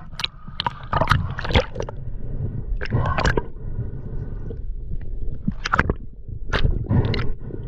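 Water gurgling and sloshing around a camera at or just below the sea surface, in irregular short splashy bursts over a steady low rumble.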